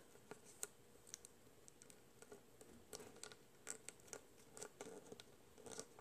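Faint, scattered crinkles and ticks of origami paper being folded and creased between the fingers.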